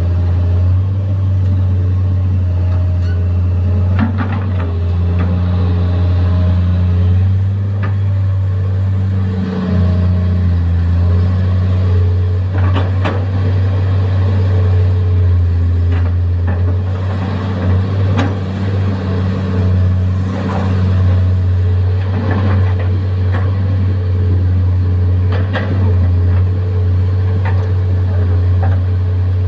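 Komatsu PC210 hydraulic excavator's diesel engine running steadily under working load, its pitched tones shifting up and down as the hydraulics are worked, with scattered knocks and clanks every few seconds.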